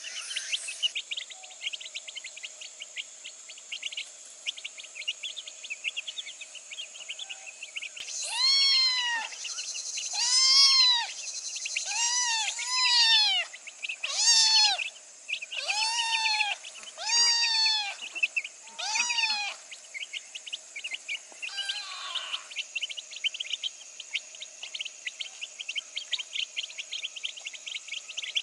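A kitten meowing, about eight mews in a row over some eleven seconds, each call rising and then falling in pitch. Constant high, fast chirping runs underneath.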